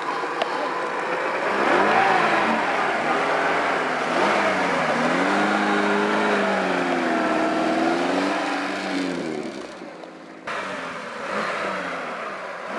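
Lada Niva's engine revving up and down under load off-road, its pitch rising and falling again and again. The sound cuts abruptly to a more distant engine near the end.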